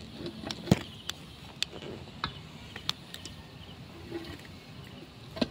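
Irregular sharp knocks of a metal bar striking and prying at a concrete tomb niche to work its sealed slab loose, the loudest about a second in.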